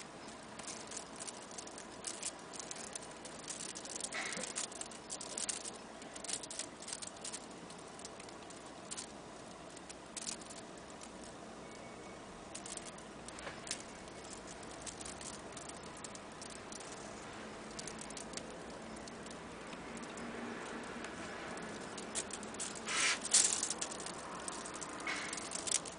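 Soft crackling and rustling as fingers knead a hanging, half-dried persimmon (hoshigaki) by hand, its skin leathery, done a second time during drying to soften the flesh and draw out the astringency faster. Irregular small crackles, with a louder cluster of them near the end.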